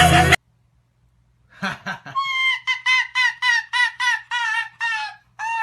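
Background music cuts off early, then an animal calls: a quick run of about nine short, high-pitched calls, roughly three a second, followed by a longer call near the end.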